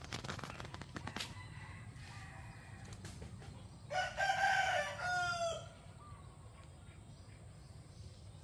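A rooster crows once, about four seconds in: one call of about a second and a half that drops in pitch at its end. A few light clicks or rustles come in the first second.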